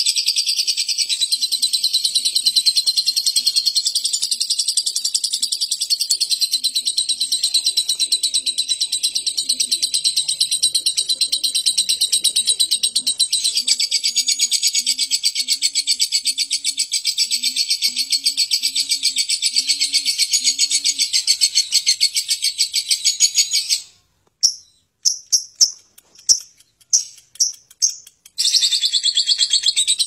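Lovebird's long, rough ngekek song: one unbroken, very fast high chattering trill. About 24 seconds in it breaks off into a few short separate chirps, then the trill starts again about four seconds later.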